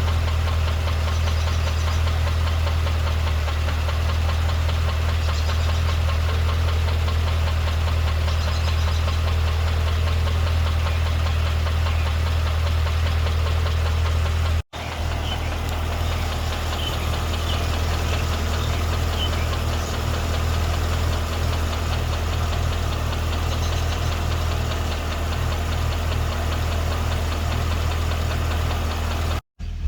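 2012 Cadillac CTS-V's supercharged 6.2-litre V8 running steadily with a ticking knock, the fault under investigation. The sound cuts out briefly twice, once midway and once near the end.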